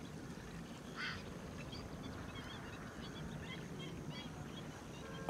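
Faint outdoor ambience with scattered short bird chirps over a low, steady background noise, and a brief rushing sound about a second in.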